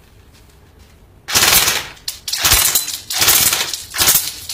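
KWA Ronin Recon ML airsoft electric rifle (AEG 3.0 ERG, electric recoil) firing full auto on an 11.1 V battery: about four short rapid bursts, the first a little over a second in.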